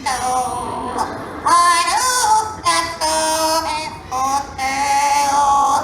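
A parrot singing the words of a song in a high, human-like voice: held notes that slide between pitches, in short phrases with brief breaks.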